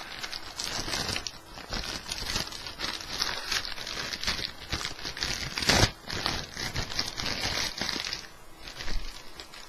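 Plastic anti-static bag crinkling and rustling as it is handled and opened and a motherboard is slid out of it, with one sharp, loud crackle a little past the middle. The crinkling thins out near the end.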